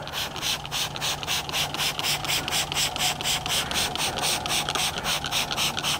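Trigger spray bottle pumped rapidly, about four or five squirts a second, each a short hiss of spray with the trigger's click, misting stain remover onto a carpet car floor mat.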